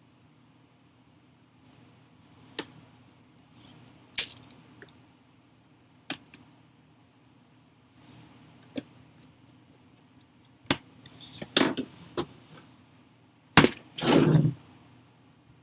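Scattered sharp clicks and taps of laptop parts being handled, about a dozen, coming closer together in the last few seconds, with a short scraping rustle near the end, over a steady low hum.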